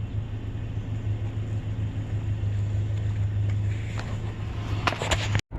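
Steady low rumble of a running vehicle, with a few sharp clicks and knocks near the end before the sound cuts off abruptly.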